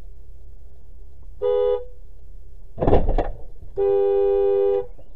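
Car horn honked twice, a short toot and then a longer blast of about a second, at a car cutting in close ahead. Between the two honks comes a loud, rough burst of noise.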